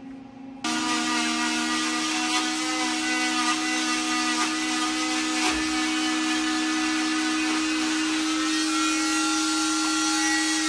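Oscillating cast saw running steadily with a high whine over a hiss as it cuts through a fiberglass leg cast. It starts abruptly under a second in.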